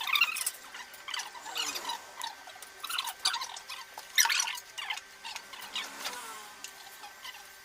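Irregular squeaks, scrapes and rustles of packaging being handled as the table saw is unpacked, with short squeals like foam or plastic rubbing.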